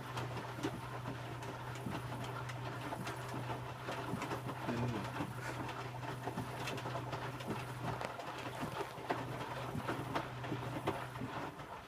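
Electrolux W455H commercial washing machine tumbling its load in the heated wash phase: a steady motor hum under the churning and clatter of laundry and water in the drum. The drum motor stops near the end, a pause before the drum turns again.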